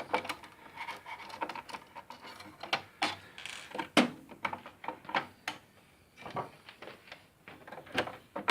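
Irregular clicks and light knocks of an opened Singer Modern Quilter sewing machine being handled and worked on by hand, with sharper clicks about three seconds in, about four seconds in and near the end.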